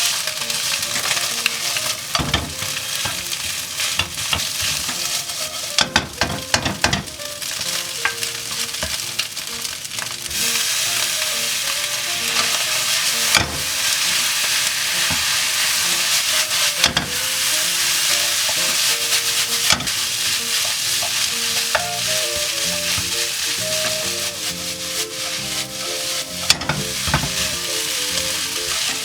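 Food sizzling in an oiled frying pan as it is stir-fried, with frequent sharp clicks and scrapes of the utensil against the pan.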